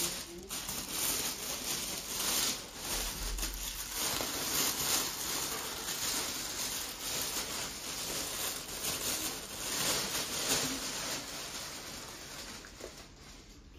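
Thin plastic carrier bag rustling and crinkling as bunches of leafy greens are pulled out of it, the leaves swishing against the plastic. Irregular, dying down near the end.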